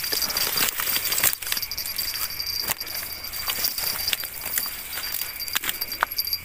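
Hurried footsteps and rustling through grass and dry reeds, with scattered clicks and knocks from handled gear. Under them runs a steady high-pitched chirring of night insects.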